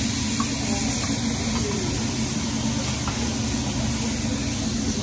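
Food sizzling on a hot hibachi teppan griddle, giving off steam in a steady hiss over a constant low hum.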